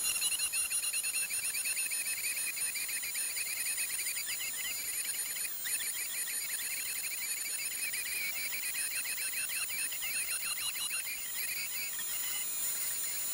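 Dremel rotary tool running at high speed, a steady high whine, as its 1.5 mm end mill cuts the grooves into a car key blank. A wavering, scratchy cutting sound under the whine changes as the key is guided along the copier jig.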